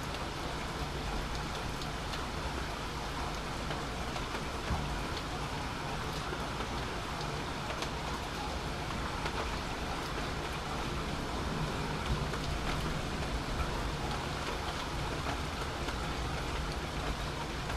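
Steady rain falling during a thunderstorm, with scattered drops ticking close by.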